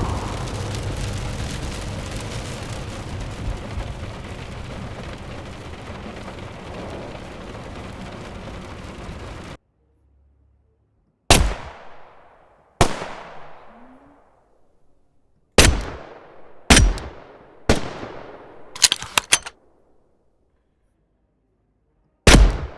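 Designed sound effects from the Krotos Studio software: a steady noisy ambience for about ten seconds that cuts off suddenly, then a string of sharp gunshot-like blasts, each with a long fading tail, with a quick burst of three near the end and one last blast after a pause.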